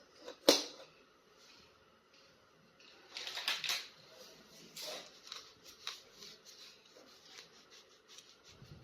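Plastic toy packaging crinkling, with small clicks and taps as an action figure is unboxed and handled. A sharp click comes about half a second in, then a run of uneven crackles from about three seconds in.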